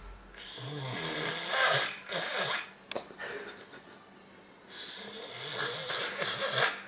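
Loud snoring: two long snores, each about two seconds, roughly four seconds apart. There is a brief click between them.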